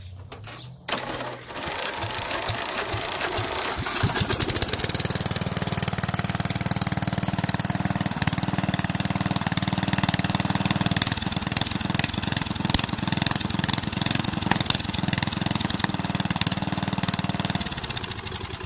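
A ride-on lawn mower's 12-horsepower engine, hot-wired, starting about a second in and running roughly at first, then running steadily and louder from about four seconds through its normal exhaust with the air-horn exhaust removed. It dies down near the end.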